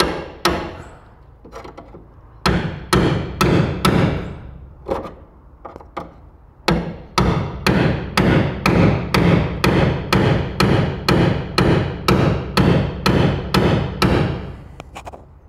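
Hammer blows driving a spot-weld removal chisel between the steel skins of a car's sill to break its spot welds: a few spaced strikes, then a steady run of about three blows a second with a brief pause partway, each with a short ring, stopping near the end.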